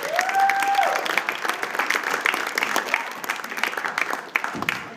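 Studio audience applauding, with one long held voice rising over the clapping in the first second; the applause thins and fades toward the end.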